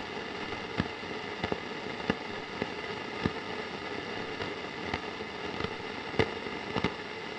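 Irregular sharp cracks and pops, about one or two a second, over a steady hiss; the strongest crack comes about six seconds in.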